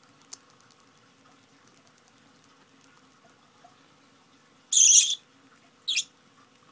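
Budgerigar giving two short harsh calls while being hand-fed from a spoon, a longer one about five seconds in and a shorter one a second later: begging for food.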